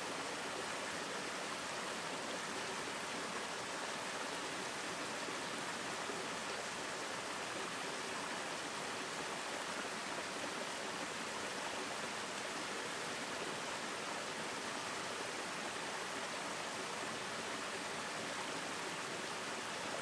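Small stream cascading over rocks, a steady rush of water with no change in level.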